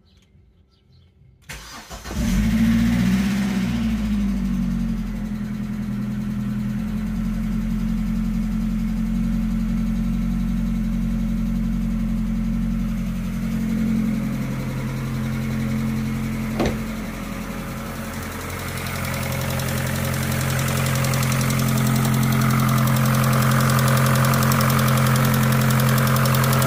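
Opel Astra Cabrio engine started from cold: a brief crank, it catches about two seconds in, settles from a fast idle and then idles steadily, running quiet after an anti-lifter-clatter oil additive was added. A single sharp click sounds about two-thirds of the way through.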